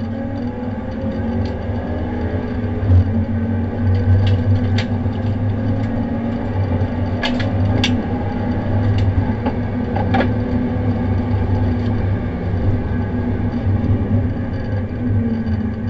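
In-car sound of a BMW 325i race car's straight-six running hard under full throttle as it accelerates on track, with a steady low drone and a few sharp clicks and rattles in the cabin.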